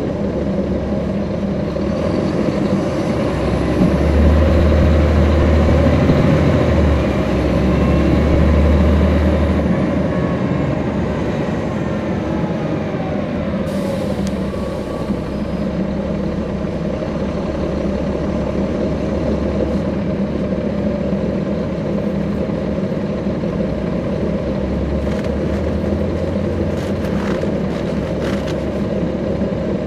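Caterpillar C13 ACERT inline-six diesel of a NABI 40-SFW transit bus, heard from inside the bus. It runs louder under acceleration for several seconds, then settles to a steady drone. A short hiss of air comes about halfway through.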